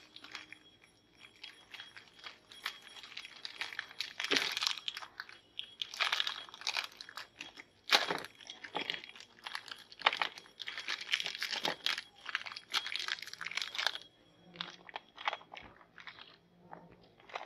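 Plastic Oreo cookie wrapper crinkling and rustling in irregular bursts as the packet is torn open and handled, with cookies clicking onto a plate. It goes quieter near the end.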